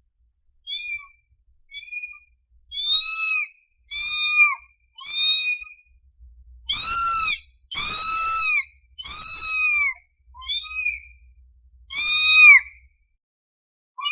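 A kitten mewing over and over: about ten high-pitched mews, each rising and falling in pitch, roughly a second apart, with a short pause near the middle and the loudest calls just after it. These are the cries of a hungry kitten calling for its mother.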